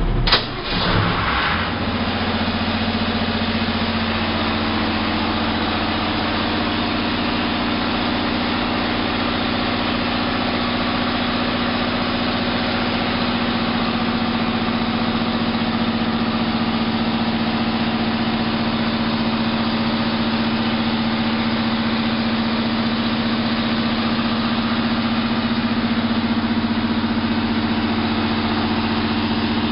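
Diesel generator set starting: a sharp clack just after the start button is pressed, then the engine runs up and settles into a steady run, its hum firming up over the first few seconds.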